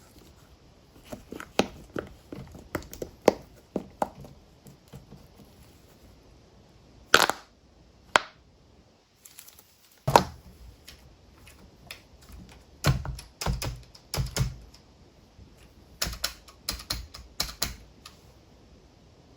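Keys being pressed on a keyboard-shaped silicone push-pop toy: irregular clicks and taps in quick clusters, like typing, some with a dull low thump.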